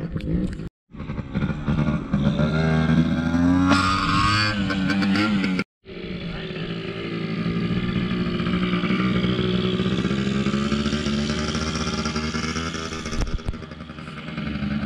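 Small child's motorcycle engine running as it is ridden, its pitch rising and falling with the throttle. The sound cuts out completely twice, about a second in and near the six-second mark.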